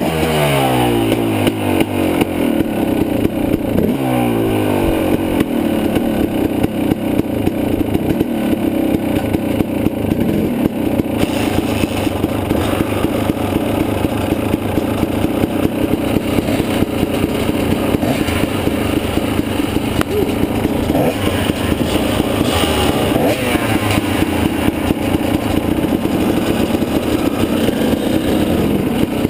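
Dirt bike engine revved twice in the first few seconds, the revs dropping back each time, then idling steadily.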